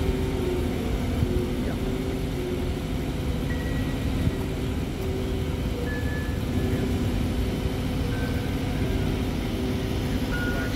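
An engine running steadily: a low rumble with short, faint whining tones that come and go.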